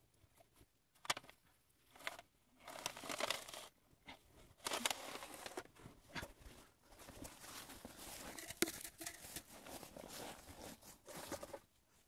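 Packed snow crunching and scraping in irregular bursts as it is worked, with a few sharp knocks.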